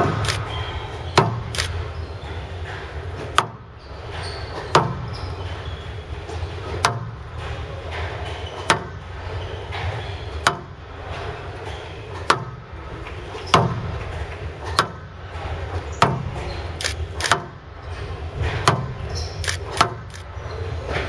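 Squash rally: sharp cracks of rackets hitting the ball and the ball striking the court walls, about one every second or two without a break, with short shoe squeaks on the wooden floor in between.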